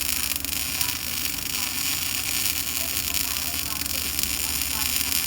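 OTC industrial welding machine running: a steady electrical hum and buzz with hiss over it.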